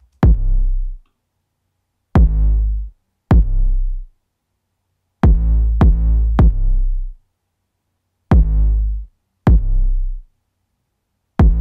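A soloed kick drum and 808 bass playing back alone, hitting pretty hard: about eight hits in an uneven pattern with gaps. Each is a sharp kick click followed by a deep 808 bass note that dies away within a second, and some hits come in quick pairs.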